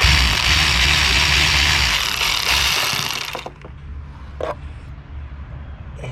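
A power tool runs with a loud hiss and a low hum for about three and a half seconds, then stops; a single sharp knock follows about a second later.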